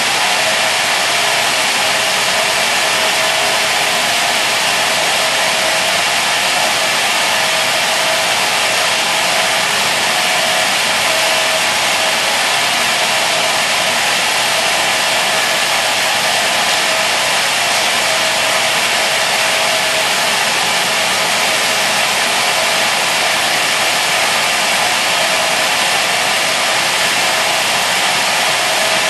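Raimann saw running steadily: a loud, even machine noise with a faint steady tone underneath, unchanging throughout.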